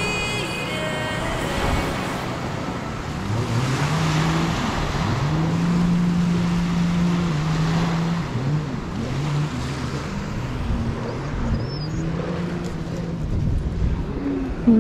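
Jet ski engine running, its pitch rising, holding and falling several times as the throttle changes, over wind and surf.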